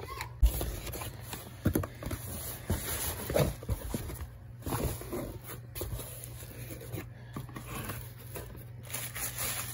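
Cardboard shipping box being opened by hand: irregular scraping and rustling of the flaps, with short knocks, the sharpest about half a second in.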